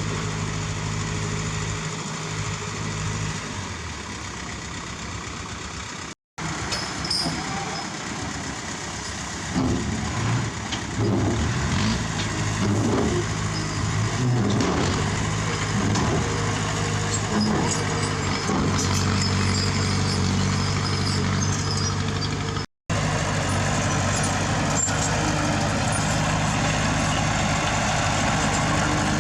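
Heavy diesel engines of construction machinery running, with a steady low engine note and a changing, labouring stretch in the middle. The sound cuts out briefly twice.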